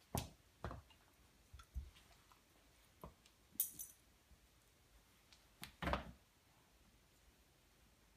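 A dog and a cat play-wrestling on a wooden floor, making a handful of scattered soft thumps and scuffles as bodies and paws knock the boards. The clearest thumps come just after the start and about six seconds in, with a brief metallic jingle about three and a half seconds in.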